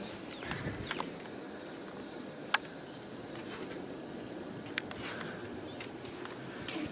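A steady chorus of chirping insects, such as crickets, with two sharp clicks, one near the middle and one a little later.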